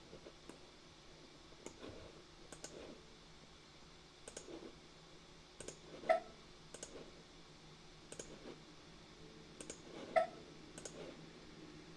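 Computer mouse clicking: irregular single clicks about once a second, two of them louder, about six and ten seconds in.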